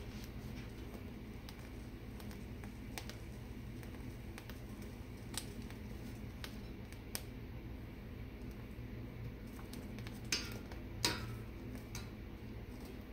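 Poblano peppers roasting over open gas burner flames, with scattered small crackles and clicks under a steady low hum. Near the end come two louder metal clicks as tongs turn the peppers against the stove grate.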